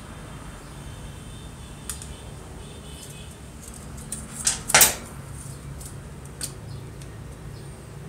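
Small metal parts of a Royal typewriter's carriage clicking and clinking under the fingers as it is taken apart, with a brief louder metallic rattle a little past halfway, over a low steady hum.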